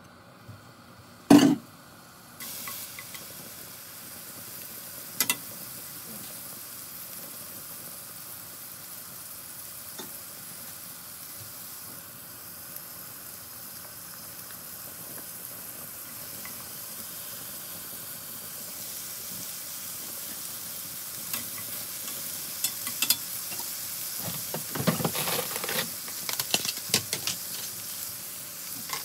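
Gopchang (small intestine pieces) frying in a hot enamelled cast-iron pan: a single knock as they go in, then a steady sizzle that slowly grows louder, with sharper crackles and clicks of stirring near the end.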